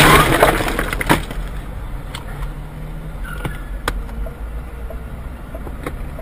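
The crunching noise of a nearby car collision dies away in the first half-second. Then comes the low, steady road and engine rumble of a car crawling in traffic, broken by a few sharp ticks.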